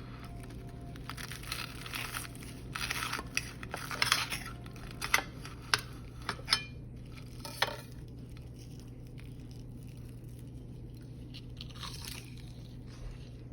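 Crisp breaded steak crunching, with sharp clicks of cutlery on a plate, over a steady low hum; the crunching and clicks fall mostly in the first half and then die down.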